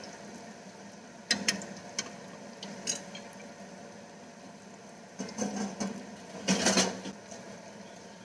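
Oil sizzling steadily as spring rolls deep-fry, broken by metal clatters of utensils against the pan: a mesh splatter screen set on and taken off and a wire strainer knocking on the rim. The clatters come in a few groups, the loudest near the end.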